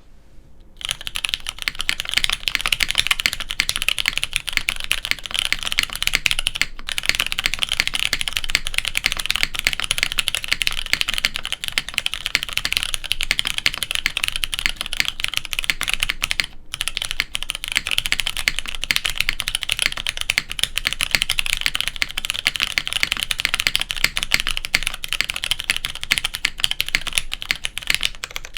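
Fast continuous typing on a custom mechanical keyboard with lubed, unbroken-in Cherry MX2A Brown tactile switches in a polycarbonate plate on a hotswap PCB, dense key clacks with brief pauses twice. The typing starts about a second in.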